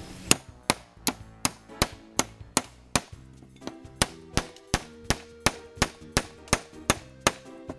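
A hand hammer striking a rusted, seized Stillson pipe wrench in a steady run of sharp metallic clangs, about two and a half blows a second, knocking rust loose to free the wrench. Background music plays under the strikes.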